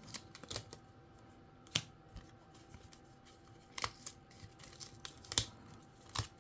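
Die-cut cardstock pieces being punched out of their sheet and handled: about six short, sharp paper snaps and taps at irregular intervals.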